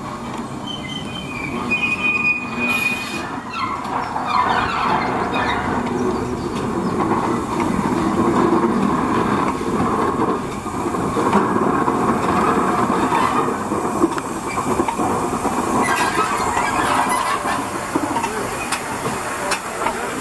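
LMS Royal Scot class 4-6-0 steam locomotive 46100 and its coaches rolling slowly past on a curve: steady wheel and rail noise with a short high-pitched wheel squeal about two seconds in and a few clanks later.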